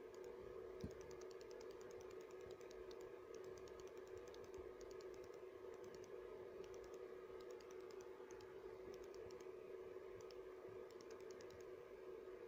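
Near silence: a faint steady hum with clusters of quick, faint, high clicks, and one soft knock about a second in.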